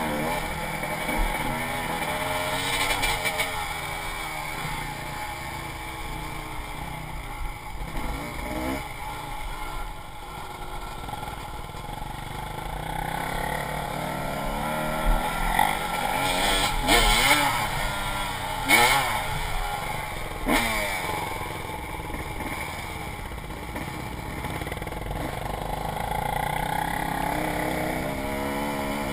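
Dirt bike engine heard from on board, revving up and down again and again as the bike rides rough trail. A few sharp knocks and rattles come about halfway through.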